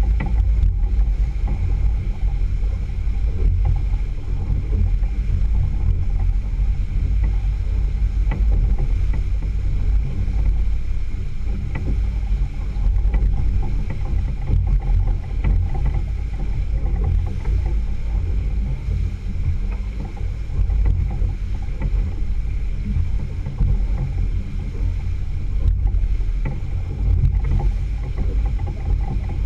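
Outboard motor running steadily with the boat under way, water rushing past the hull, under a heavy low rumble of wind on the microphone.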